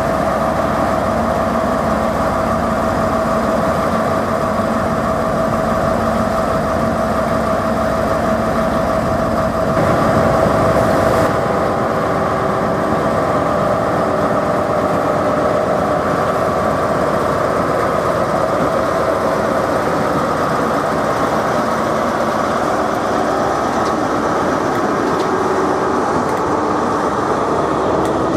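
Class 43 HST power cars' diesel engines running steadily with a whine. About a third of the way in, the sound changes as a GWR HST moves slowly past, its power car and coaches rolling along the platform.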